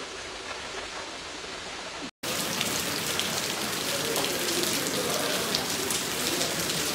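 Floodwater churning in a flooded metro station passage. After a brief cut, a louder, dense patter like heavy rain: water leaking into a high-rise office and dripping from the ceiling.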